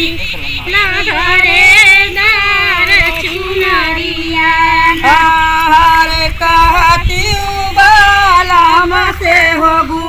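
Women's voices singing a kajari, a Bhojpuri monsoon folk song, in long held notes that waver and bend in pitch.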